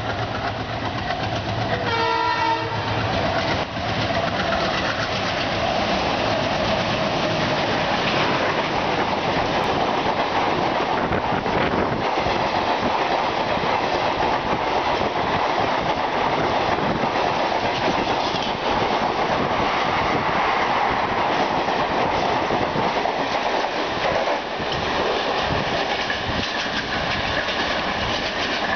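WDG3A diesel locomotive with an ALCO 16-cylinder engine, sounding a horn blast about two seconds in, then chugging hard as it passes at speed. A long rake of passenger coaches follows, rushing past with their wheels clattering on the rails.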